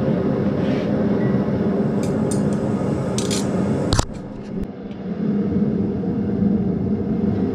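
Steady drone of a blacksmith's forge running while the steel reheats, with a few light metallic clinks of tools on the anvil and one sharp click about four seconds in.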